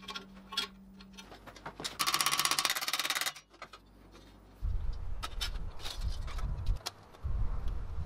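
Light metallic clicks of a steel helmet visor latch being handled and fitted, then a brief buzzing rasp of metalwork about two seconds in. From about halfway on, wind buffets the microphone in a low irregular rumble, with a few faint clicks.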